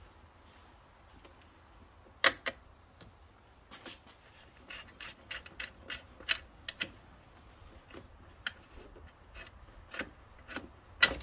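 Irregular light clicks and taps of a wrench and the plastic vacuum-line fitting being worked loose at a brake booster, with a sharper click about two seconds in and another near the end.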